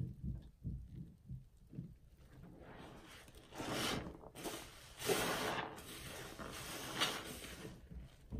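A soapy sponge squeezed and squished by hand in a sink of thick lather: soft wet squelches, then three louder frothy, crackling squeezes starting about three seconds in.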